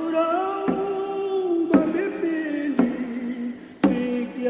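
A song sung in a Papuan language, with long held notes that glide between pitches, over a sharp percussive beat about once a second.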